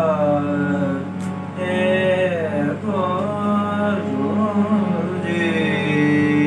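Male voice singing Gurbani kirtan in Raag Gauri, with long notes that glide up and down over a steady drone.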